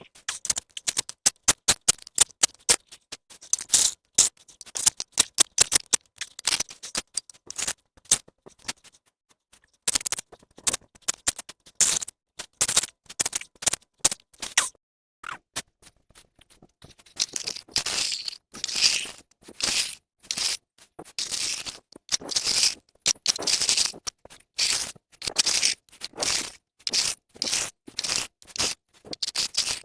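Repeated short, sharp scraping strokes of a hand tool, several a second in irregular runs, with a few brief pauses.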